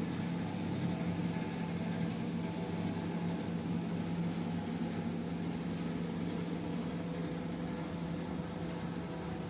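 A steady low hum with an even hiss behind it, like a motor or machine running, unchanging throughout.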